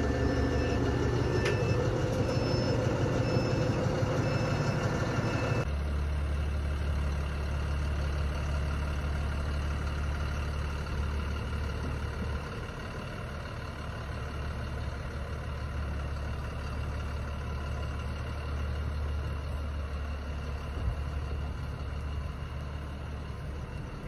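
Tractor diesel engine running, heard from inside the cab for the first six seconds, louder and with a faint pulsing high tone; after a cut it is heard from outside, idling steadily with a low hum.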